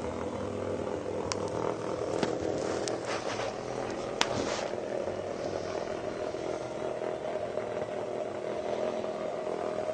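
Two small vibrating bug toys, cheap Hexbug Nano knock-offs, buzzing steadily as their vibration motors drive them across the hard plastic floor of a laundry basket. A few sharp clicks come in the first half.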